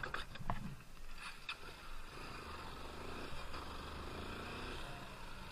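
Honda XR190L's air-cooled single-cylinder engine running at low speed as the dirt bike rolls slowly over a dirt clearing, with a few light clicks in the first second and a half.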